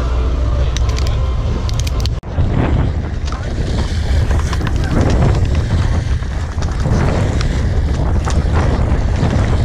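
Wind buffeting the microphone aboard a sportfishing boat under way, over a low engine drone and water noise. There is a sudden short drop about two seconds in.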